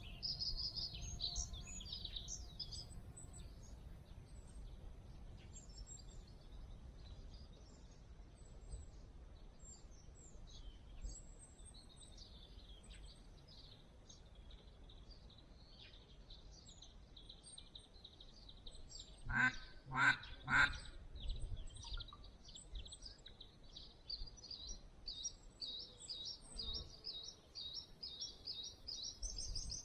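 Three loud duck quacks in quick succession about two-thirds of the way in, over steady twittering of small songbirds.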